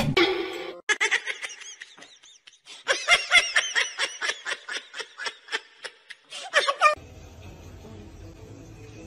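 A dog chewing a pink squeaky toy, the toy squeaking in a rapid run of short high-pitched squeaks, about three a second, that stop about seven seconds in. After that there is a faint steady low hum.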